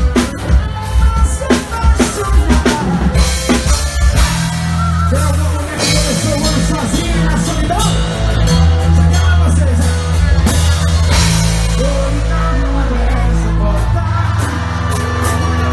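Live forró band music: drum kit and bass with melodic instruments. Hard drum hits lead the first few seconds, then the band settles into held bass notes under a steady beat.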